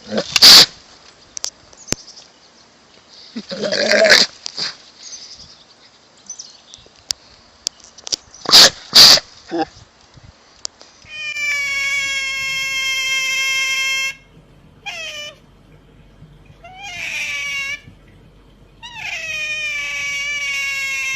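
A cat yowling. A few short, harsh noises come first, then long drawn-out yowls of about three seconds each, with a few shorter cries between them.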